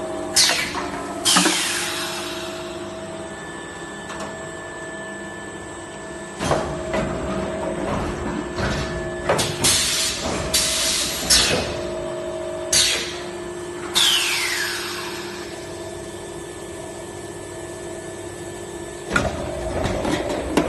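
Bottle blow molding machine running its cycle over a steady hum: repeated sudden blasts of compressed air hissing, several fading away over about a second as the air vents, with clacks from the mold opening and closing.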